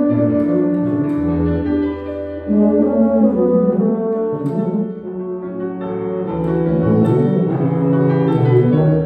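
Tuba and piano chamber music: tubas play held low notes, one long deep note in the first half, over struck piano chords.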